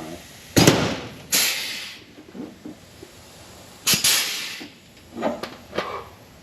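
Pneumatic rivet gun popping rivets into race-car sheet metal. Each pull gives a sharp pop followed by a short hiss of exhausted air: two near the start, two more close together in the middle, then lighter clicks near the end.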